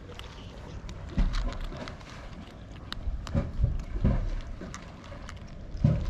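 Cats crunching dry kibble: scattered crisp clicks of chewing, with a few low thumps on the microphone.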